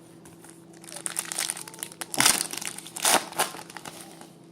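Foil wrapper of a trading-card pack crinkling as it is handled and opened, with sharp louder crackles about two seconds in and again about three seconds in.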